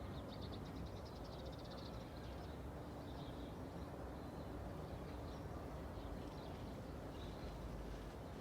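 Small birds chirping, with a fast trill in the first second or so and scattered short calls after, over a steady low hum of traffic.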